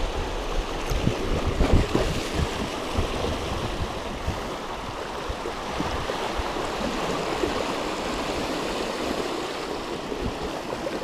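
Small waves washing and splashing over the rocks at the water's edge, a steady surf hiss, with a few low wind buffets on the microphone in the first couple of seconds.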